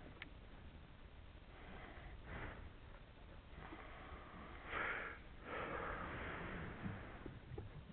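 Water washing against the hull of a small boat drifting at sea, in several soft swells of rushing noise, the loudest about five seconds in. A faint click comes right at the start.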